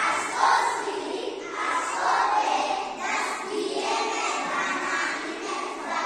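A group of young children's voices shouting and calling out together, many at once, with no single clear speaker.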